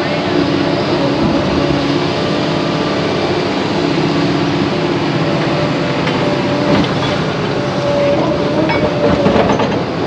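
SANY tracked excavator's diesel engine running steadily under load while its boom and arm lift and swing. A few short knocks come near the end.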